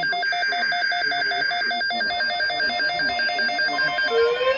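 Emergency alert alarm: rapid electronic beeping, about five beeps a second, joined near the end by a rising whoop tone that repeats about once a second.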